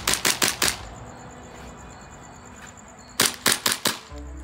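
Airsoft gun firing two quick strings of shots, about four and then five, at roughly six shots a second, with a steady high insect trill underneath. Music comes in near the end.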